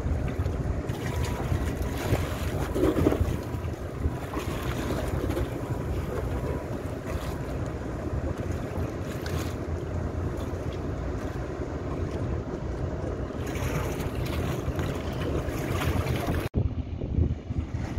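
Steady low drone of a small boat's engine under wind buffeting the microphone, with water washing past. Near the end the sound breaks off abruptly and resumes as a different stretch of the same kind of noise.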